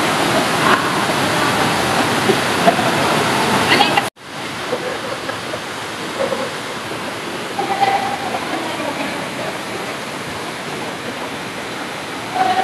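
Steady rushing water. It cuts out abruptly about four seconds in and comes back quieter, with a few faint voices in it.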